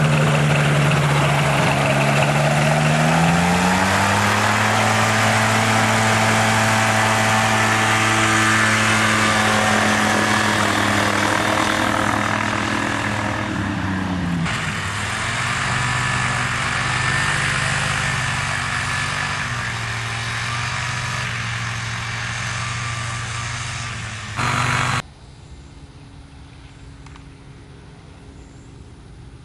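Air Creation Racer ultralight trike's Rotax 447 two-cylinder two-stroke engine and pusher propeller running loud just after starting, climbing in pitch as it revs up a few seconds in, dipping and rising again about halfway. Near the end the sound drops abruptly to a faint, distant engine hum.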